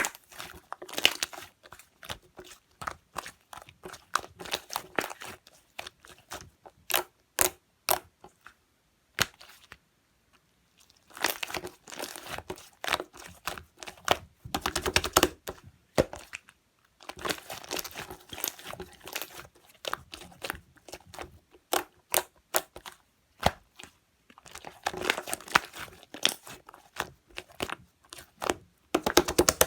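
White slime being squished and stretched by hand, giving off rapid bursts of small clicky pops and crackles, with a couple of short pauses between bouts.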